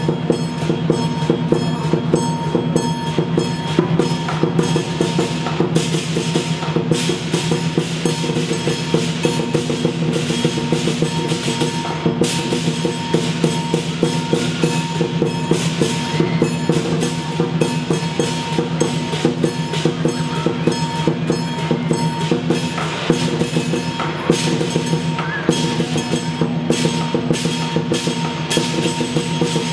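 Chinese lion dance percussion: a large lion drum beaten in fast, dense strikes together with clashing cymbals and a ringing gong, keeping up a steady driving rhythm.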